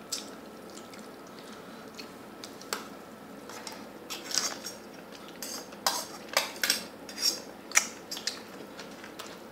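Metal spoons and tableware clinking and scraping against stainless steel pots and dishes as food is served. It starts with a single click, and a quick run of sharp clinks begins about four seconds in.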